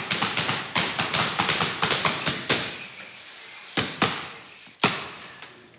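Rapid pops of a paintball-style marker firing powder balls at a wall for bullet-hit effects, about six to seven shots a second, stopping about two and a half seconds in. Then two single, louder cracks a second apart, echoing in the large stage.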